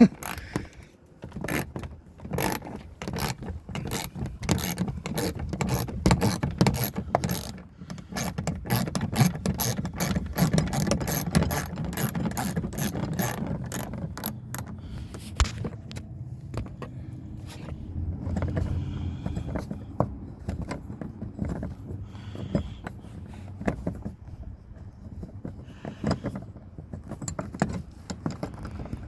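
Ratchet with an extension and 8mm socket clicking as it works a tight door-handle bolt held with thread locker on a 1990s Ford F-150. Rapid clicking through about the first half, then slower, fainter clicks.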